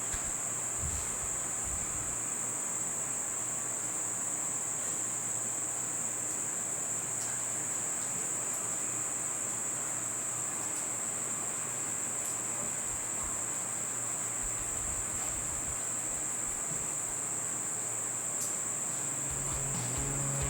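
Insects trilling steadily at a high pitch without a break.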